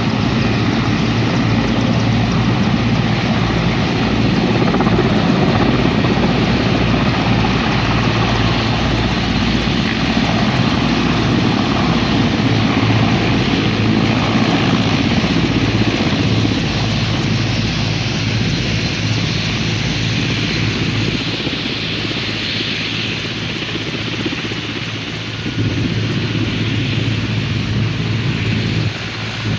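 Mil Mi-17 helicopter's turbines and rotors running loud and steady through lift-off and departure, a rushing turbine sound over a pulsing low rotor beat. The rotor beat fades gradually after about halfway as the helicopter flies off.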